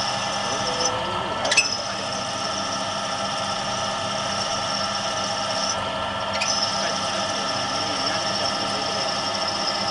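Automatic double-sided lock shell drilling machine running, its drills cutting iron or copper lock bodies with a steady, many-toned machine whine. The high tone breaks off briefly twice, about a second in and near six seconds in, with a sharp clack as it comes back the first time.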